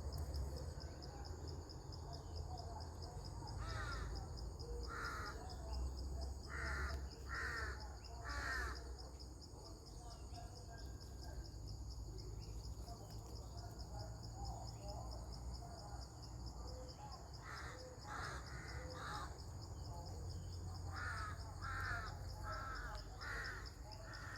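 Two bouts of short, harsh bird calls repeated several times, over a steady, pulsing high insect drone.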